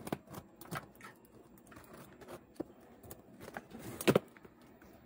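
A parcel being opened by hand: scattered rustles and clicks of the packaging being torn and handled, with two sharp clicks about four seconds in.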